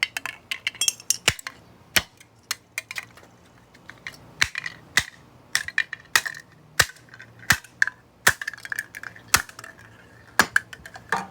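Repeated sharp blows smashing the remains of a broken light bulb and its parts: an irregular series of cracks and clinks, some with a brief ringing.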